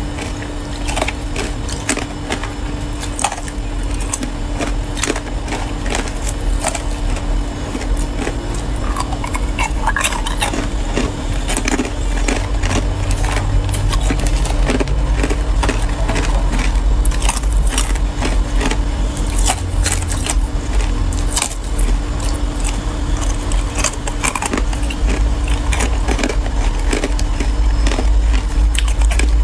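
Matcha-powdered ice being bitten and crunched close to the microphone, with a dense run of sharp cracks and crunches throughout, and chopsticks scraping and knocking ice in a takeaway tray. A steady low hum runs underneath.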